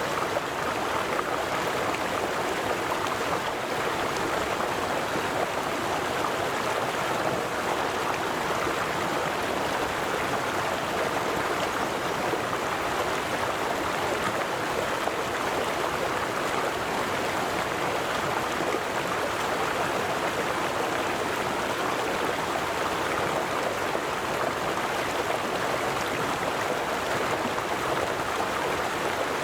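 River water flowing and babbling, a steady, unbroken rush.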